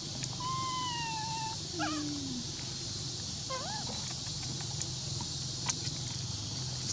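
Long-tailed macaque calls: a long, slightly falling coo about half a second in, a short lower falling call just after it, and a brief rising-and-falling squeak about three and a half seconds in, over a steady high hiss.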